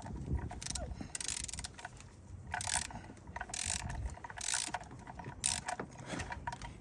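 Ratcheting torque wrench worked in repeated strokes, its pawl clicking in quick runs about once a second from a couple of seconds in, tightening the smaller cylinder head bolts of a GM 2.4 L four-cylinder engine to torque.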